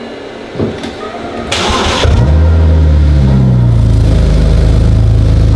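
BMW E92 335i's turbocharged inline-six cranking and firing up: a short whir from the starter about a second and a half in, then the engine catches with a quick rise, revs briefly and settles into a loud, steady idle.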